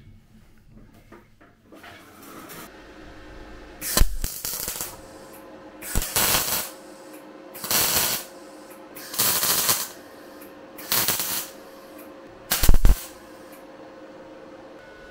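Six short bursts of pressurised spray or air hissing, one every second and a half to two seconds, some starting with a sharp pop, over a faint steady hum.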